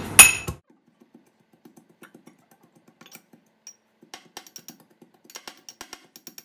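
Steel pestle pounding garlic in a small steel mortar (hamam dasta): a sharp metal clink at the start, then faint, quick tapping strokes, several a second, that grow busier near the end.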